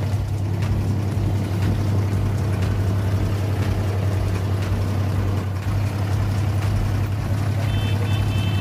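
Diesel engine of a wooden abra water taxi running steadily under way, a constant low drone heard from on board.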